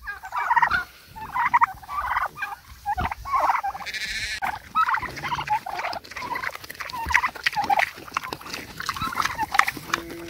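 Farm animals calling in short, repeated bursts as they feed on broken-open pumpkin, with scattered clicks and knocks.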